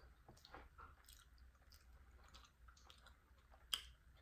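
Faint mouth sounds of a person chewing soft, thick cheese grits, with scattered small clicks and one sharper click near the end.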